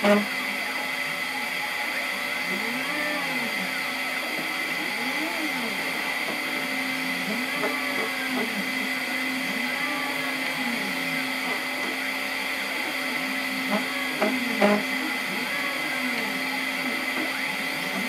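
CNC 3018 engraver's stepper motors whining in short rising and falling pitches as the laser head speeds up and slows down along the engraving paths, over the steady whir of the laser module's cooling fan. A few light clicks come about three-quarters of the way through.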